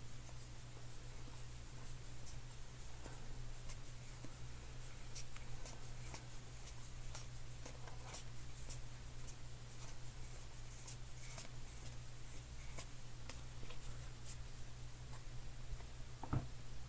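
Stack of cardboard baseball cards being flipped through by hand: faint scattered flicks and rubbing as cards slide off one another, over a steady low hum.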